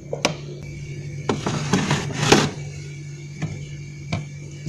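Containers and bowls set down and shuffled on refrigerator shelves: a handful of knocks and clatters, the loudest about two seconds in, over a steady low hum.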